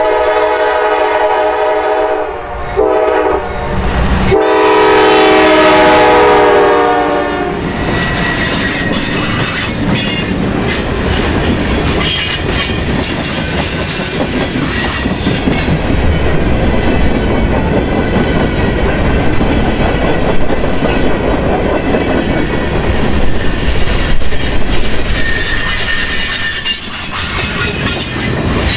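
GE C40-9W freight locomotive sounding its air horn: a long blast, a short one, then a longer blast of about three seconds. The freight train then rolls past, wheels clicking over rail joints, with thin high wheel squeals at times on the curve.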